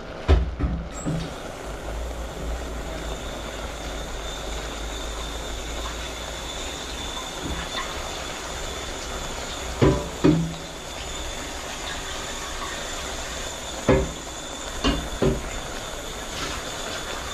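Vinegar with sliced onion, carrot and pepper simmering at a slight boil in a stainless steel pot on a gas burner: a steady bubbling hiss. A few sharp knocks stand out, two close together about ten seconds in and three more near the end.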